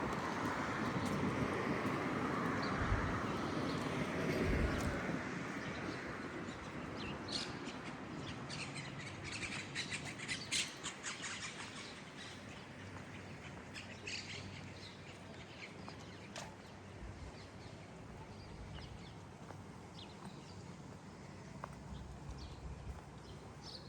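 Street ambience: traffic noise fades out over the first few seconds, then birds chirp in quick clusters of short calls, busiest a few seconds later and thinning out toward the end.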